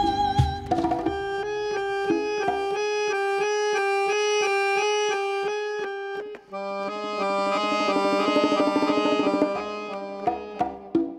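Accordion music: quick, evenly pulsed repeated chords, breaking off about six and a half seconds in and resuming with a fuller, lower chord figure, with a few short sharp accents near the end.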